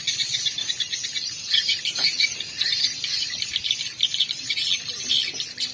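Chorus of insects chirring, a dense, fast pulsing that runs on steadily, with a few bird chirps.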